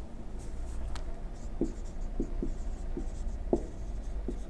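Marker pen writing on a whiteboard: short, faint squeaks and scratches at irregular intervals as letters are formed, over a steady low hum.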